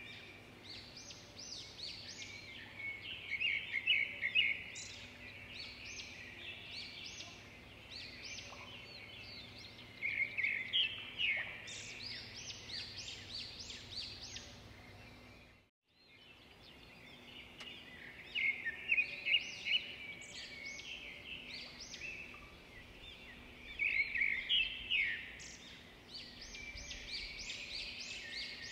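Birds chirping and twittering in quick, repeated trills. The sound cuts out briefly about halfway through, then resumes.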